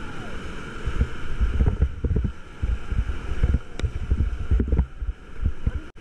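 River rapids rushing around an inflatable raft, a steady hiss of whitewater, with wind buffeting the microphone in uneven low gusts.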